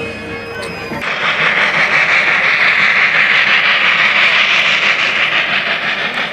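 Steam locomotive hauling a train away, a loud steady hiss of steam that starts abruptly about a second in, after a second of music.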